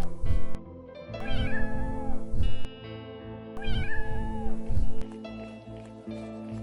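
Two drawn-out cat meows, one about a second in and one near the middle, each rising, holding and falling, over background music with a steady beat.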